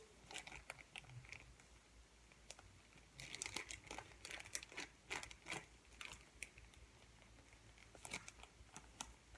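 Plastic packaging of a squishy toy crinkling as it is handled, in scattered crackly bursts: a longer run about three seconds in and another near the end, with quieter stretches between.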